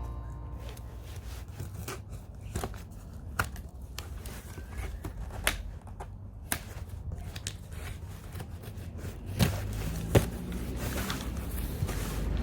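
New pannier bags being unpacked and handled: rustling and crinkling of packaging with scattered clicks and knocks, two sharper knocks near the end.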